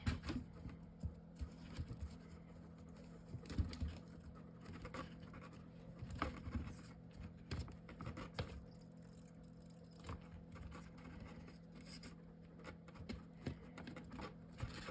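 Quiet handling of paper and chipboard craft pieces: scattered light taps, scratches and small clicks as a paper-wrapped skewer rod is fitted into a paper toolbox gift box, over a steady low hum.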